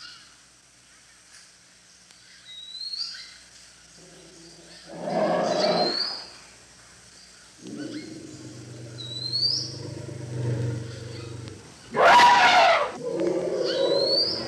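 Asian elephant calling: a harsh roar about five seconds in, a low rumble from about eight seconds, and a louder harsh call about twelve seconds in, the loudest sound here. Behind it a bird repeats a short rising chirp four times.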